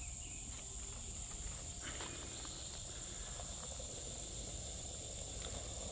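Insects, likely crickets, buzzing steadily in a high, even tone, with a few faint ticks and a low rumble underneath.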